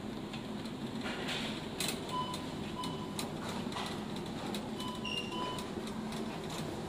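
Wire shopping cart rolling along a supermarket aisle, rumbling with small rattling clicks over a steady store hum. Short electronic beeps sound in two pairs, about two seconds in and again about five seconds in.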